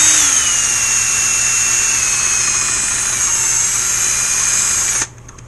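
Cordless drill spinning a 3D-printed mixing paddle through fiberglass resin thickened with microballoons: a steady whine whose pitch drops a little just at the start and then holds. It cuts off suddenly about five seconds in.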